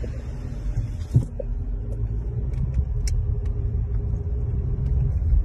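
Low road and engine rumble inside a moving Volkswagen car's cabin, with a single thump about a second in.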